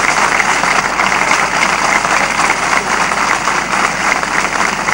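Crowd applauding: dense, steady clapping from many people.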